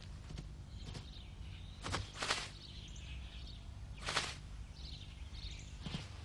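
Quiet outdoor ambience with faint bird chirps, broken by two short hissing swishes, about two seconds and four seconds in.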